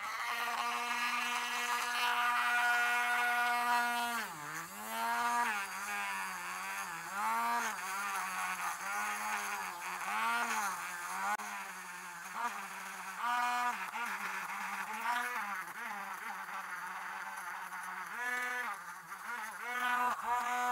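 Handheld rotary tool with a brass wire wheel running at high speed: a steady whine for the first four seconds, then its pitch repeatedly sags and recovers as the spinning wheel is pressed against the steel jaw of an adjustable wrench to brush off rust.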